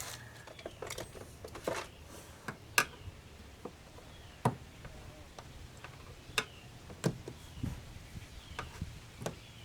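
Scattered light clicks and sharp taps of hands and parts being worked at a car door, with about half a dozen louder knocks spread through.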